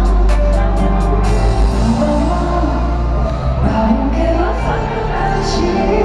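Loud pop music with singing, sustained notes and heavy bass; a quick ticking beat of about four strokes a second stops about a second in.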